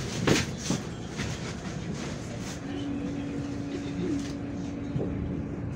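Cabin noise of a MAZ-105 city bus under way: a steady low rumble with a couple of sharp rattling knocks in the first second. A steady hum comes in about halfway through.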